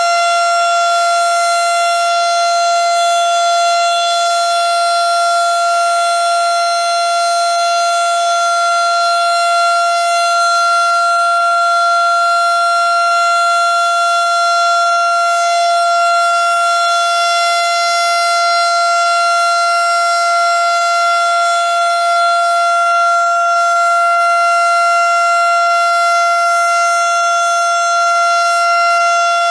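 Federal Signal STH-10 outdoor warning siren sounding loud and steady at full speed, holding one unchanging tone.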